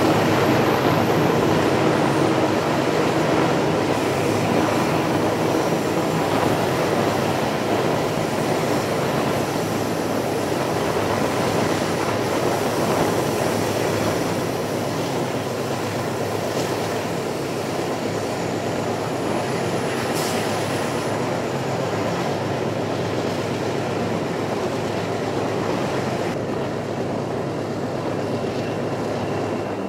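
Train running along the track: a steady noise of wheels on rail, with faint thin squeals from the wheels on the curves. It grows gradually a little quieter over the first half.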